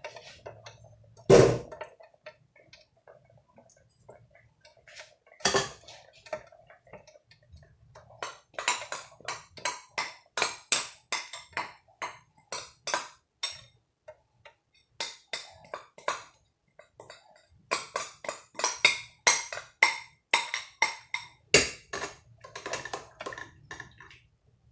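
A pot lid set down with a sharp clank, a second knock a few seconds later, then runs of quick taps and knocks as a glass bowl of ground ogbono paste is tapped and scraped out into a steel cooking pot.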